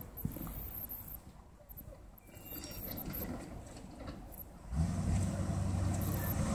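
Engine of a custom 1957 Chevrolet approaching, a low steady rumble that comes in abruptly about two-thirds of the way through and stays loud; before that, only a faint low background.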